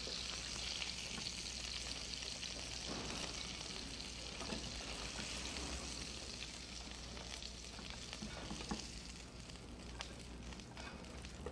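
Hot fat sizzling steadily in the frying pan the steaks were just sautéed in, easing off a little near the end, with a few faint clicks of utensils and a low hum underneath.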